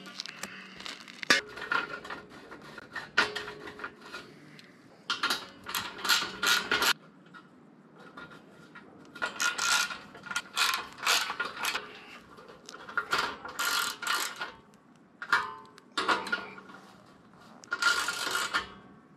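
Screws being driven through the attic fan's sheet-metal dome cover with a hand screwdriver, in several bursts of rapid clicking and scraping a second or two long, with quieter pauses between.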